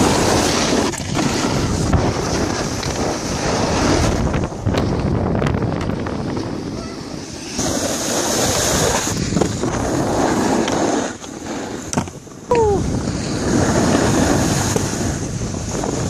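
Snowboards sliding and scraping over packed snow, with wind buffeting the microphone: a steady rushing noise that drops away briefly about eleven seconds in.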